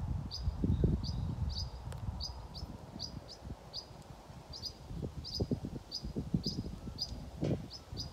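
A small songbird calling with one short, high chirp repeated evenly, about two to three times a second, over low rumbling noise that swells in the first second and again in the last few seconds.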